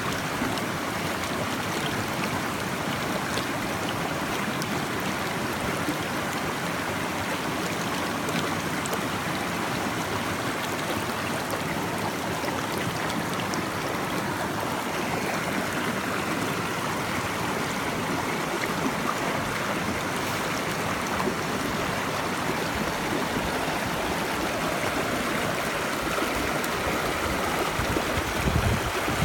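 Running water flowing steadily, an even rushing wash with no pauses. A brief low rumble shows near the end.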